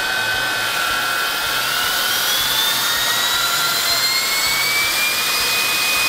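V-Scan 300 cordless stick vacuum running in auto mode over spilled cat litter. Its motor whine rises in pitch from about a second and a half in, then holds steady near the end: the suction is stepping up automatically for the amount and size of the debris.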